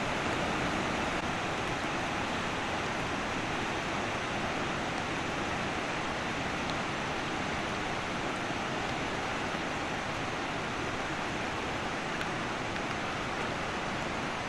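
Heavy rain falling: a steady, even rush of noise with no breaks.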